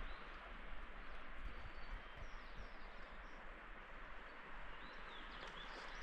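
Steady outdoor background noise, with a few faint, high bird chirps a couple of seconds in and again near the end.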